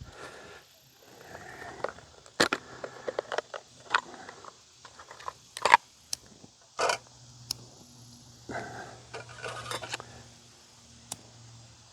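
Scattered sharp clicks, taps and short scrapes of a small denatured-alcohol camp stove and gear being handled while it is lit.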